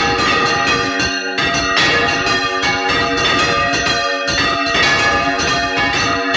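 Five church bells swung full circle together in the Valencian volteig style, their clappers striking again and again in a loud, dense, overlapping peal, heard close up inside the belfry.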